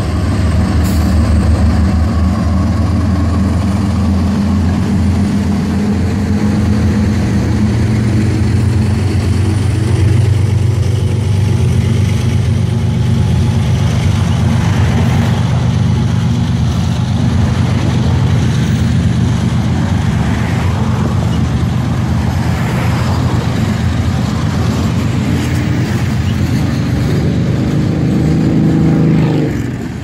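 Freight train passing close by: the trailing ES44AC diesel locomotive goes by, then a long string of freight cars rolls past with a steady rumble of wheels on rail.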